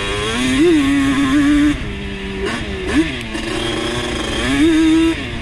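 Two-stroke sport quad engine running at high revs, throttle opening and closing. A loud steady high note eases to a lower one about two seconds in, with a quick rev blip about three seconds in. The engine climbs back onto the throttle near the end.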